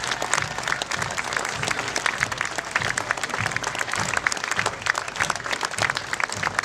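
Crowd clapping continuously, over a steady low beat about twice a second, like a marching band's bass drum.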